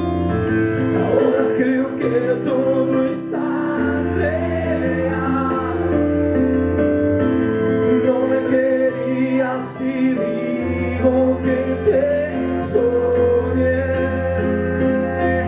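Live band playing a slow song: keyboard, violin and drums over low held bass notes that change a few times, with a male voice singing on top.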